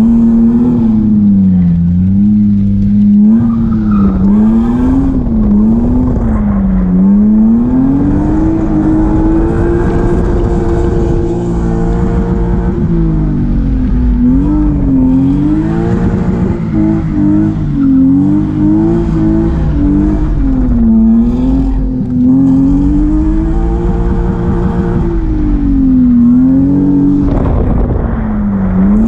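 A BMW drift car's engine, heard from inside the cabin, revving up and down over and over as the car slides, with the tires squealing at times.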